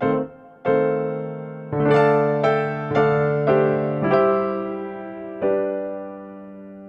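Background piano music: a slow, gentle melody of single struck notes over held chords. Each note rings and fades, and a last chord about five seconds in is left to ring out.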